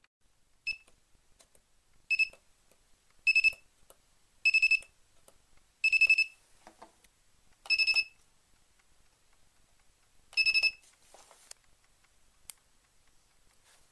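Piezo buzzer on a DIY spot welder board giving seven short high-pitched beeps at uneven intervals, with faint clicks of handling between them.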